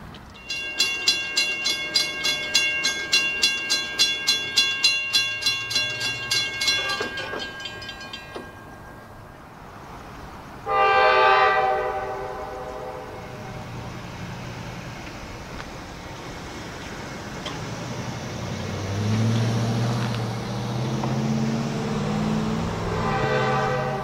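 Grade-crossing bell ringing about twice a second, stopping about seven seconds in. Then a CSX GE diesel locomotive horn sounds one loud blast of about two seconds. The light engines' diesel motors rumble louder as they approach, and the horn starts again at the end.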